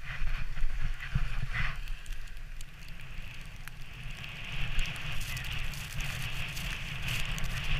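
Wooden sledge's runners sliding fast over packed snow, a steady scraping hiss that grows louder about halfway through, with scattered small knocks. Wind rumbles on the camera microphone throughout.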